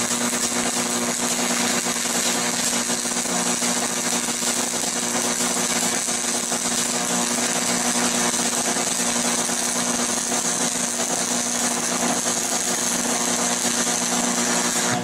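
Shielded metal arc (stick) welding with a 6013 rod on cast iron, run DC electrode negative at about 120 amps: the arc burns steadily with a continuous crackling sizzle over a steady low hum.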